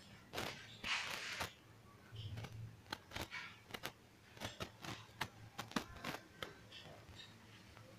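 Handling noise from a handheld camera: scattered light clicks and taps, with two short rustles in the first second and a half.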